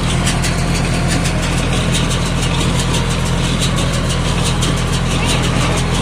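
Farm tractor engine idling steadily, with a rapid, even clatter.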